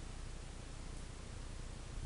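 Steady hiss with a low hum underneath: room tone and recording noise, with no distinct sound event.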